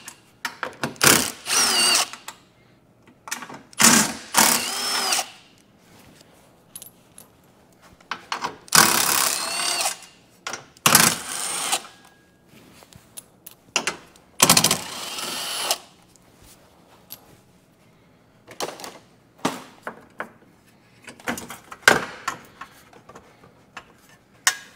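A cordless power tool spinning in several short bursts of a second or so, each rising in pitch as it spins up, as it backs out the 10 mm bolts of the upper radiator core support. Scattered clicks and knocks of bolts and tools being handled follow near the end.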